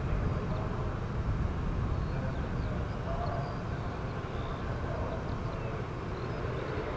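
Boeing 787 Dreamliner's twin jet engines in a display flypast, heard from the ground as a steady low rumble.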